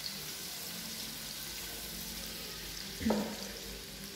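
Sliced shallots and garlic sizzling steadily in hot cooking oil in a wok, stirred with a spatula, with a brief knock about three seconds in.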